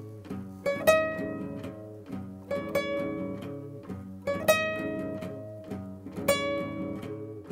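Instrumental music: single notes picked on a plucked string instrument, each ringing out and fading before the next, with no voice.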